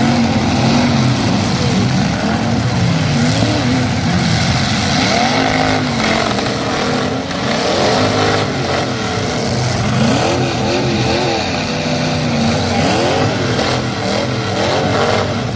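Several demolition derby trucks' engines revving hard, their pitch repeatedly climbing and dropping, in a loud continuous din.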